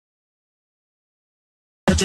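Dead digital silence, until just before the end loud music cuts in abruptly.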